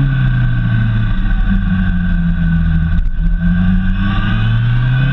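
Honda CBF 600's inline-four engine easing off, its pitch falling, then holding steady before rising again near the end as the motorcycle accelerates out of a bend. Low wind rumble on the microphone underneath.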